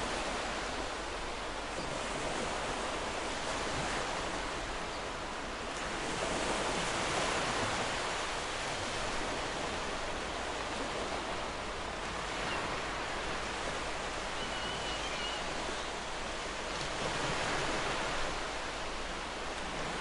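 Ocean waves washing gently onto a shore: a steady hiss of surf that swells and eases with each wave. A distant gull cries briefly a little past the middle.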